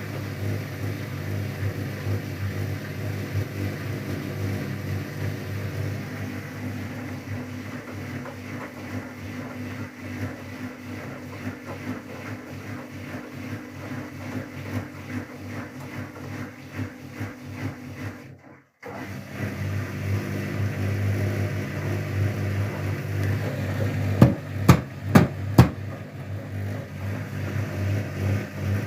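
Whirlpool FSCR90425 front-loading washing machine running its softener rinse: a steady motor hum as the drum turns. About two-thirds of the way through the sound cuts out for a moment, and near the end come four sharp knocks.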